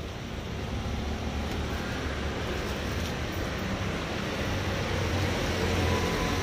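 Street traffic with motor scooters passing on the road: a steady engine and tyre rumble that grows louder toward the end.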